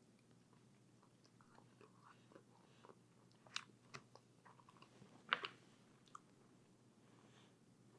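Quiet chewing and biting of crispy-coated hot orange chicken, with a few faint sharp clicks, the loudest about five seconds in.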